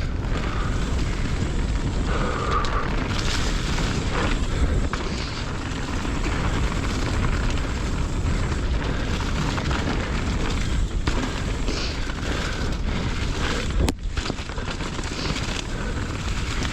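Mountain bike riding fast down a dirt trail: wind buffeting the microphone and tyre noise make a steady rumble, with occasional knocks and rattles from the bike over bumps.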